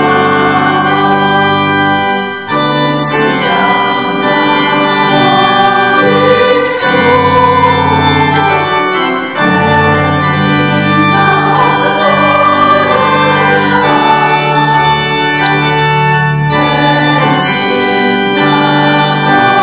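Background music: an organ playing slow sustained chords, the bass notes changing every few seconds.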